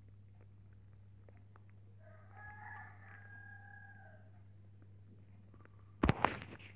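Rabbits nibbling dry chicken mash from a dish: faint scattered ticks over a steady low hum. A rooster crows once, faintly, about two seconds in, one call lasting about two seconds. Near the end, sudden loud knocks and rustling close by as a rabbit moves.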